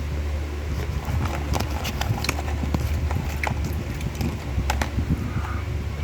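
Eating sounds: irregular clicks and smacks of chewing, over a steady low hum.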